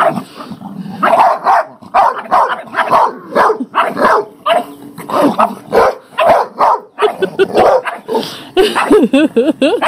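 A large dog barking over and over in short loud calls, ending in a wavering whine near the end. The tail is wagging as it barks, so this is excited, not hostile.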